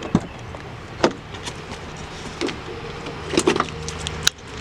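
A vehicle engine running at idle as a steady low hum, with scattered clicks and light knocks over it, one sharper click near the end.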